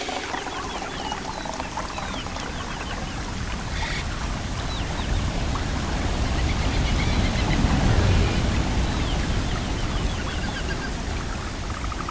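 Running water, swelling to a louder rush about eight seconds in, with birds chirping in short repeated runs above it.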